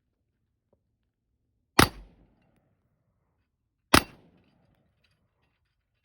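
Two gunshots from an LWRC DI AR-15 rifle, about two seconds apart, each a sharp crack with a short echo.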